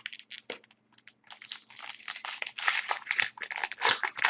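Foil hockey card pack wrapper being torn open and crinkled by hand: a few short crackles, then dense continuous crinkling from about a second in.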